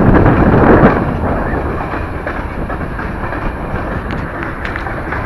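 Freight train cars rolling past: a steady rumble of wheels on rail with scattered clicks. It is louder for about the first second, then settles lower.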